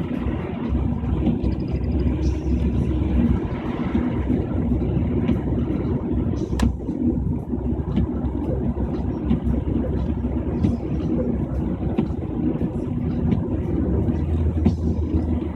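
Steady low rumble of a car travelling on a highway, with faint scattered ticks and one sharper click about six and a half seconds in.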